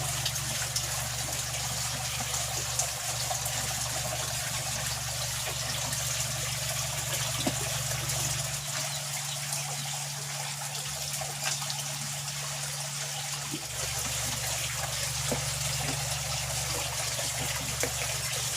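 Aquarium water bubbling and trickling steadily under aeration from two Aquaspeed 5-watt air pumps, both now pumping air again after the repair, with a steady low electric hum from the pumps.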